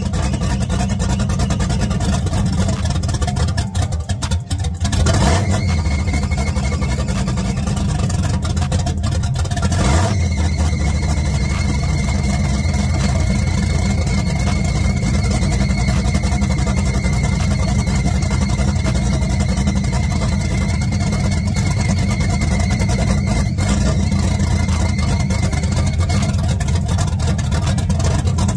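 Freshly installed Blueprint 383 stroker small-block Chevy V8 running on its first fire, just after catching. Its revs sag about four seconds in and rise briefly around five and again around ten seconds, then it runs on steadily with a thin high whine over it.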